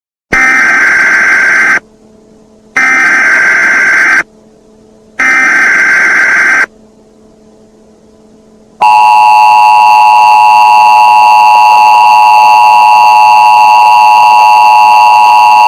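Emergency Alert System tornado-warning opening: three identical harsh data bursts of about a second and a half each (the SAME header), then, about nine seconds in, the steady two-tone attention signal that holds for about eight seconds and cuts off.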